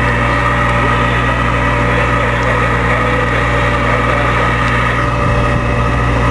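Engine running steadily: a constant drone with a steady hum of even tones, unchanging in level.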